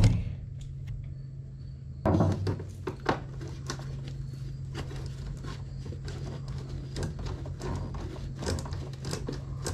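Hand ratchet clicking in short irregular runs as it works a stubborn screw loose, with occasional metal knocks, over a steady low hum.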